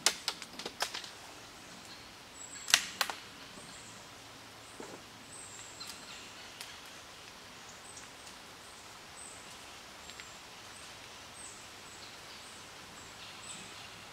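A few sharp clicks and knocks from handling the .22 rifle in the first three seconds, then quiet outdoor background with faint high chirping while the shooter holds for the next shot.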